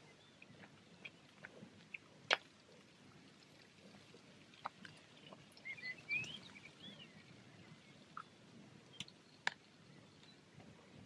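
Quiet outdoor background with a few short bird chirps near the middle and scattered sharp clicks, the loudest about two seconds in.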